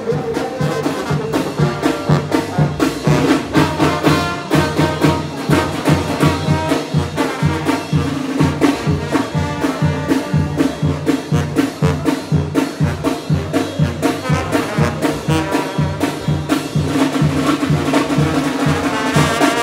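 Tamborazo brass band playing a lively tune: trumpets, trombones, saxophone and tuba over a steady, driving beat from the tambora bass drum and cymbal.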